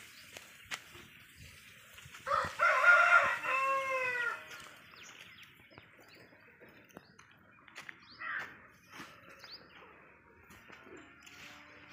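A rooster crowing once, about two seconds in, for about two seconds, the pitch rising then falling away at the end; faint small-bird chirps follow later.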